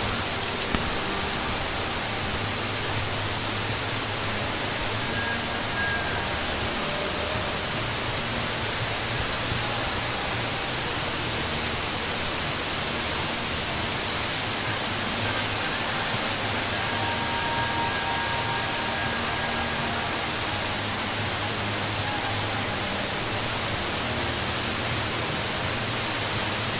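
Steady, even rushing hiss of ambient noise with no rhythm, with one short click about a second in.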